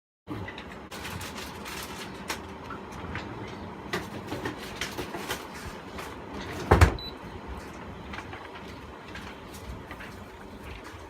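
Handling and work noises: a string of small clicks and knocks over a low background, with one loud thump a little before the middle.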